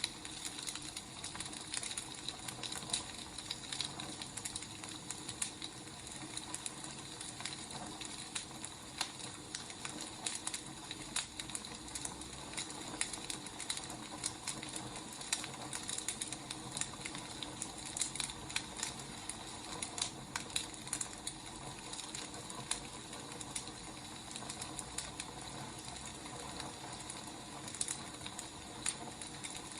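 Wood fire crackling: a steady hiss with frequent irregular pops and snaps.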